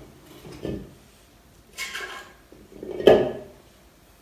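A ladle scraping and knocking against a stainless steel mixing bowl as thick waffle batter is scooped out: a soft thump, then a scrape, then a louder knock about three seconds in.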